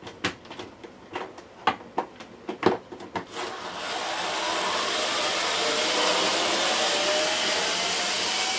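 Clicks and knocks of a long extension bit being fitted and seated, then a small cordless electric screwdriver's motor starts about three and a half seconds in and runs steadily, its pitch slowly rising, as it slackens a deep Torx screw.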